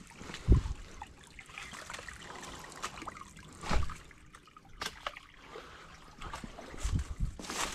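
Hiker's footsteps through forest undergrowth: scattered crackling of leaves and twigs, with three heavy low thumps about three seconds apart.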